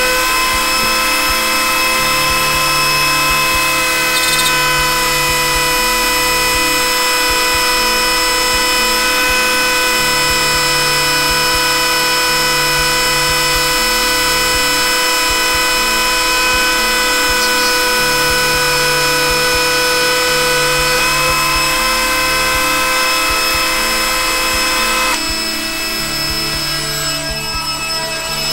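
Ryobi rotary tool station's flexible-shaft handpiece running at a steady high speed, a constant whine as its bit cuts out the visor opening of a helmet shell. The whine stops about three seconds before the end, and a softer rushing noise follows.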